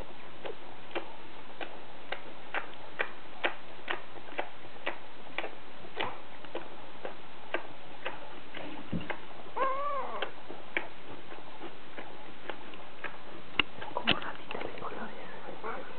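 Old English Sheepdog puppies at their food: a run of small clicks and taps, roughly two a second, and one short rising-and-falling puppy whimper about ten seconds in. A sharper knock comes near the end.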